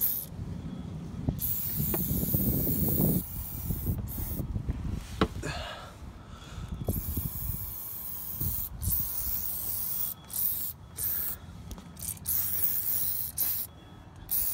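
AMSOIL Heavy Duty Degreaser aerosol can spraying in a run of hissing bursts, some long and some short, stopping and starting many times. During the first few seconds there is also low rubbing and a few sharp knocks.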